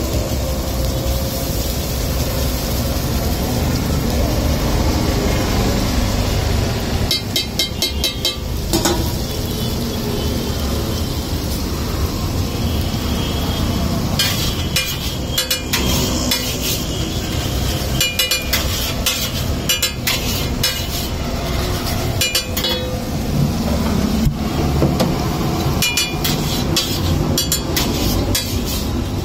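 Onion and grated tomato sizzling in oil on a large flat iron griddle, with several runs of quick clinks as a long metal spatula blade chops and scrapes against the griddle.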